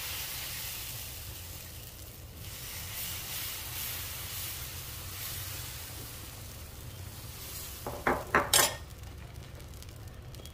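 Rava uttapam batter sizzling on a hot, oiled nonstick tawa as it is poured and spread with a steel ladle. A few sharp metal clinks of the ladle against the pan come about eight seconds in.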